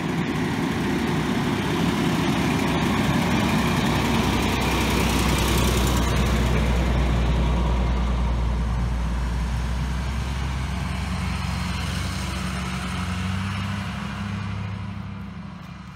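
Fire engine's diesel engine running as it drives slowly past, a steady low hum, with a Ford pickup-based brush truck's engine following behind it. The sound fades out near the end.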